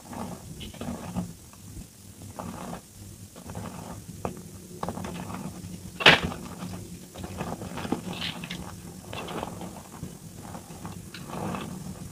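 Hands crushing and squeezing soft reformed gym chalk in a bowl, sped up to double speed: irregular crumbly crunches and powdery squeaks, with one sharp crack about halfway through as a firmer piece breaks.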